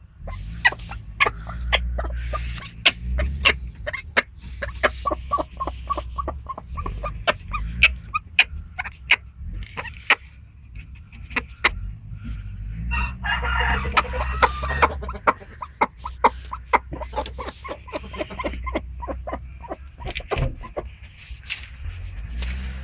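Chickens clucking in short, repeated calls, with a longer, louder call about thirteen seconds in.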